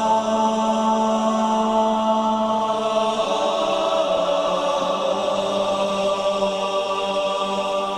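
Male voices of a multi-tracked virtual choir singing a long sustained chord, which moves to a new held chord about three seconds in.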